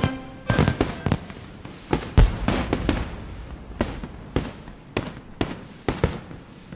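Firecrackers going off: about fifteen sharp, irregular pops, the loudest about two seconds in.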